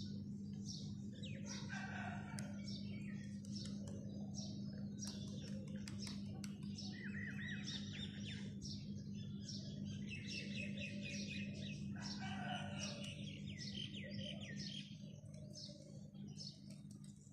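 Small birds chirping over and over, with a rooster crowing twice (about two seconds in and again about twelve seconds in), over a steady low hum.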